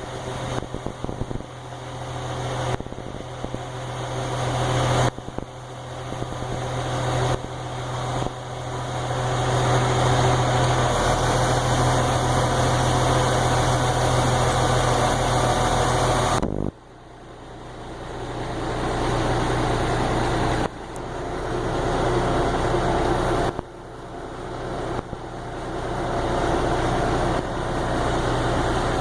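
Engine running with a steady low hum. The sound drops suddenly several times and builds back up over a few seconds each time.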